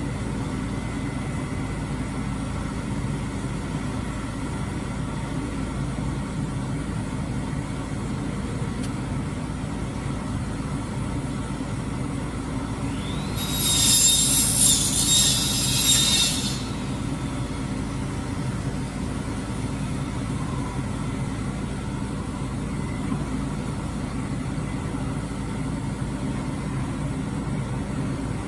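Boom truck's engine running steadily while it powers the crane lifting drywall. About halfway through comes a loud, high hiss lasting about three seconds.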